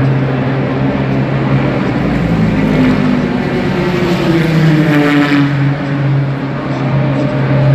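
Race car engines running at speed on the track, with one car passing about five seconds in, its engine note dropping in pitch as it goes by. A steady low drone runs underneath.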